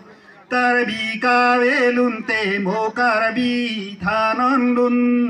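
A man singing an unaccompanied chant-like song in long held notes with a wavering pitch, in several phrases after a short pause at the start.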